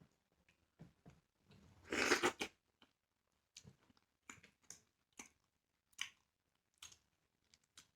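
Close-up mouth sounds of a person eating starch: a series of short, wet chewing smacks about every half second to second, with one louder, longer noise about two seconds in.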